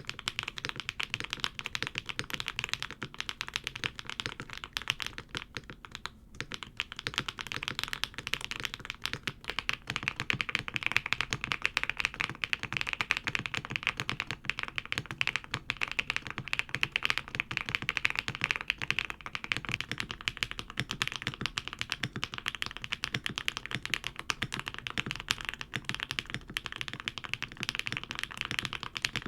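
Fast, continuous typing on a Neo75 Cu mechanical keyboard: a dense run of key clacks, with a short break about six seconds in.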